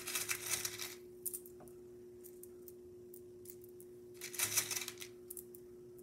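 Small shell mosaic pieces clinking and rattling against each other and a plastic cup as a hand scoops and sorts through them: two short bouts of clatter, at the start and about four and a half seconds in, with a few single ticks between.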